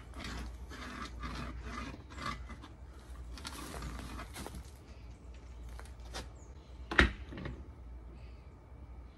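A spirit level scraping and rubbing against a stucco wall in short strokes as it is set and shifted, with one sharp knock about seven seconds in.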